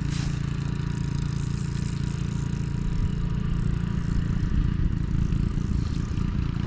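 Boat motor running with a steady low hum, with light rattling over it.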